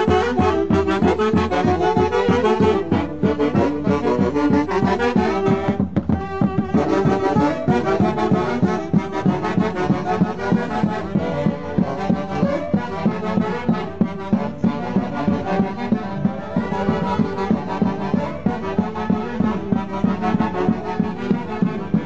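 Andean saxophone band (orquesta típica) playing a lively tune in unison with a steady beat.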